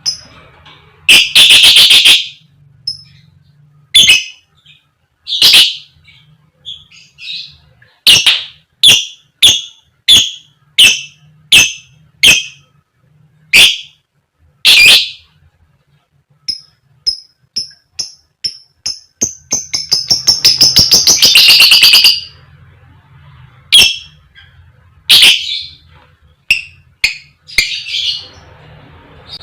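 Lovebird giving loud, sharp, short 'koek koek' and 'cik cik' calls, one at a time at uneven gaps, with a quick burst of notes about a second in. About two-thirds of the way through comes a long, rapid rattling trill that lasts over two seconds.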